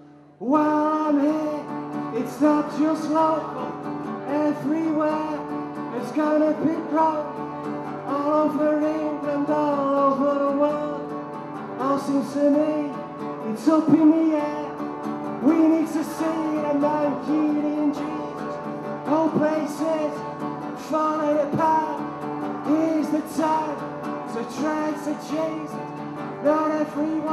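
A man singing while strumming an acoustic guitar, in a live solo performance. It starts abruptly just after the beginning.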